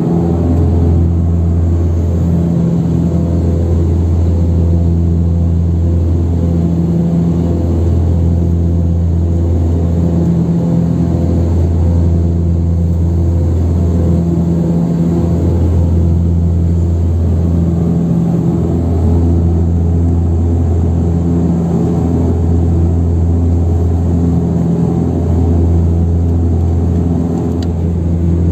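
Cabin drone of an Antonov An-24RV's twin Ivchenko AI-24 turboprop engines and propellers in flight: a loud, steady low hum that swells and fades in a slow beat about every four seconds.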